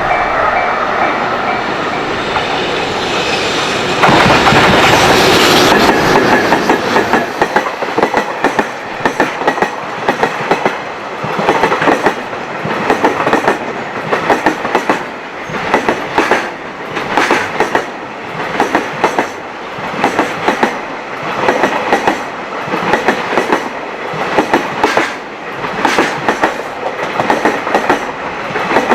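Long freight train passing close by, its wheels clacking over rail joints in an even rhythm about once a second. The sound is steadier for the first few seconds and jumps suddenly louder about four seconds in, before the clacking starts.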